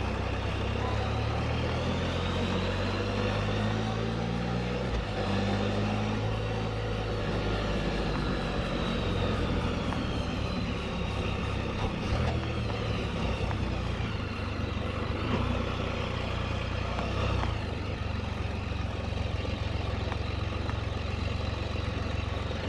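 Can-Am Spyder RT Limited three-wheeler's engine running steadily while riding, with road and wind noise on the rider's helmet-mounted microphone.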